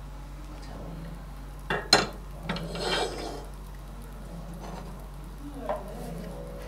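Kitchen pan-and-utensil clatter: a sharp metallic clank about two seconds in, then a short scraping rustle and a lighter knock near the end, over a low steady hum.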